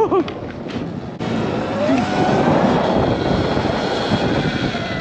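Sur-Ron electric dirt bike on the move: its motor whine rises and falls in pitch with speed over a steady rush of wind and road noise, getting louder about a second in.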